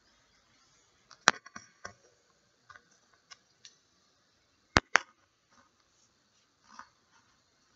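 Sharp clicks and taps from small camera parts being handled close to the microphone: a few scattered knocks, the loudest a quick pair about five seconds in.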